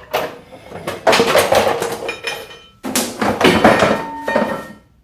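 Hard plastic parts knocking, clattering and scraping against the bike's frame as a seat is set in place, in two bursts of clatter.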